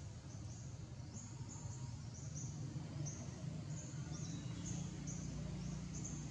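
Outdoor forest ambience: short high-pitched chirps repeating about two or three times a second over a steady low rumble.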